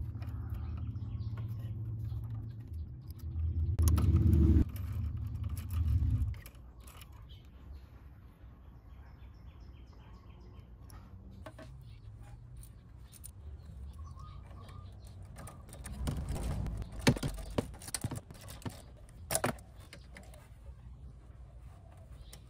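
A low rumble for about the first six seconds, then scattered light metallic clicks and clinks of hand tools and a bolt being fitted at the scooter's front, a ratchet with a 10 mm socket among them.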